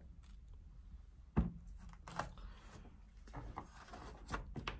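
Small plastic measuring cup and resin bottle handled on a work table: a few soft knocks and clicks, the loudest about a second and a half in and a cluster near the end.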